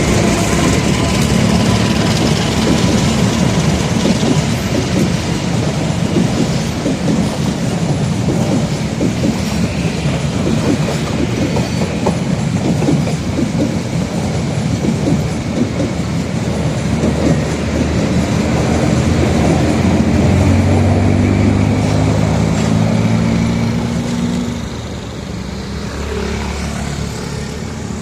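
A train rolling past on the rails, wheels clattering over the track. Near the end a low diesel engine hum comes in under the wheel noise, and then the sound drops off.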